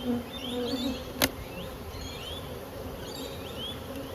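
Honeybees buzzing around an open hive, the buzz swelling in the first second, with one sharp click about a second in.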